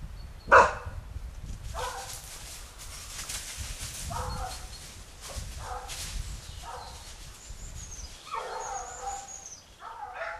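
Hunting dog barking about seven times at irregular intervals, the first bark, about half a second in, the loudest.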